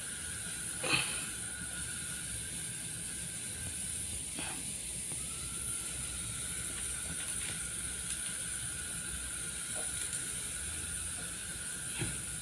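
CRT television switched on for a picture-tube test, giving a steady hiss with a thin steady whine. The whine drops out briefly about four seconds in, and there are a few faint clicks.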